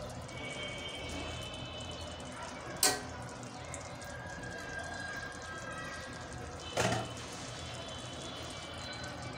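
Two sharp metal knocks, about four seconds apart, as fried potatoes are placed with a wire spider strainer into an aluminium pot of cooked chicken curry. Faint steady background noise runs between them.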